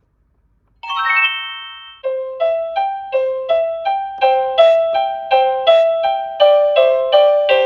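Toy cash register's electronic sound chip playing a tinkly keyboard-style tune: a quick rising run of notes about a second in, then a melody of short single notes at almost three a second.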